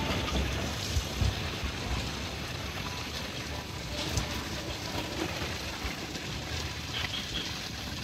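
Water trickling and flowing down a small rocky stream into a garden pond, under an irregular low rumble.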